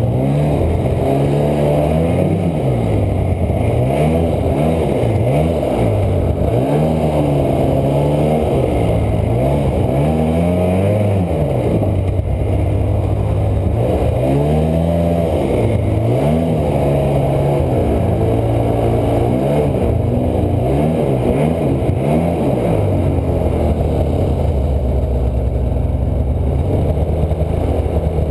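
Polaris snowmobile engine revving up and falling back again and again as the throttle is worked, the sled under load breaking a new trail through deep untracked snow.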